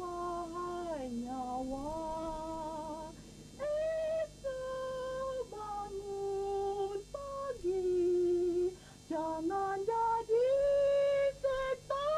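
Solo humming of a slow tune: one line of held notes joined by slides, with short breaks between phrases and no accompaniment.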